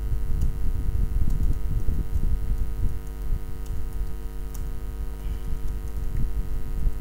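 A steady electrical mains hum and a low rumble, with a few faint clicks from computer keyboard keys as a short command is typed.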